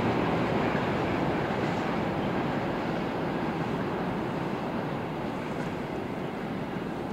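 Rumble of a freight train rolling away on the rails, fading steadily.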